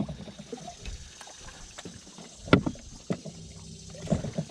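Scattered sharp knocks and clunks aboard a small fishing boat, the loudest about halfway through, with a low steady motor hum coming back in after about three seconds.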